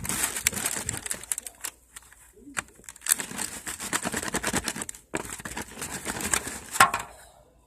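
Glossy slime being worked by hand, giving a rapid run of small wet clicks and crackles. It comes in two spells: one at the start that stops after about two seconds, and a longer one from about three seconds in until near the end.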